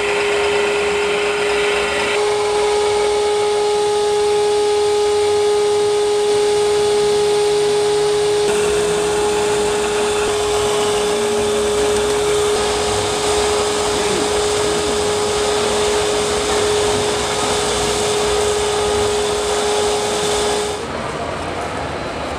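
A small electric motor running with a steady whine, one clear tone with a fainter overtone over a hiss, which cuts off near the end.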